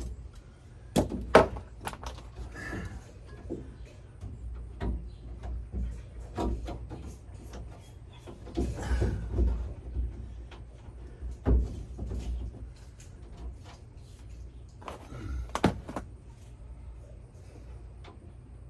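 Irregular knocks and taps against a van's sheet-metal interior panels, with a brief rustle about nine seconds in, as pieces of sound-deadening material are handled and fitted.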